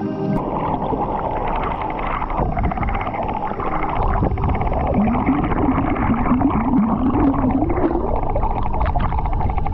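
Water of a tiered waterfall pouring in a steady rush. A wavering low tone rises and falls through the middle of it.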